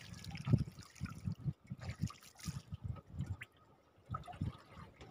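Sea water lapping and sloshing against the side of a small wooden boat, in irregular soft slaps.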